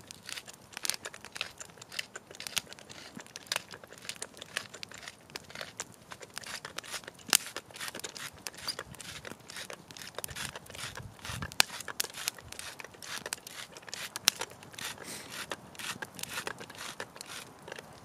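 Wood campfire crackling, with irregular sharp pops and snaps throughout, a few standing out louder.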